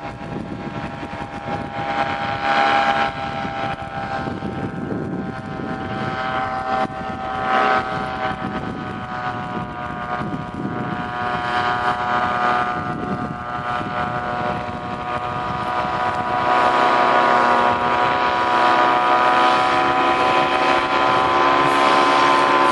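Paramotor engine and propeller buzzing steadily overhead, getting louder for the last several seconds as the powered paraglider comes closer.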